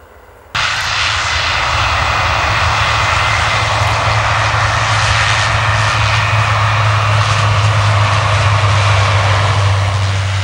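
Airliner engines running loud and steady at takeoff power, cutting in abruptly about half a second in.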